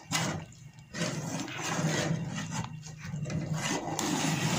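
Kheer, rice cooking in milk, being stirred with a ladle in a metal pot on the stove: a rushing, rubbing sound that dips briefly about half a second in.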